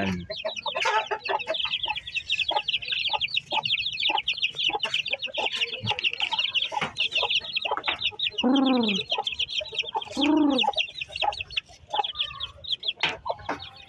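A brood of young shamo chicks peeping, many rapid high peeps overlapping in a continuous chorus. Twice, about eight and a half and ten seconds in, a louder, deeper chicken call rises and falls above them.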